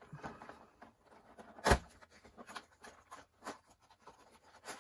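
Cardboard toy box being handled and its lid opened: scattered light clicks and rustles, with one sharp knock about a second and a half in.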